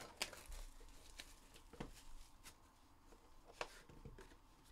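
Faint handling of a Panini One and One trading-card hobby box: a few scattered light taps and scrapes as it is picked up and moved on the table, the sharpest a bit past halfway.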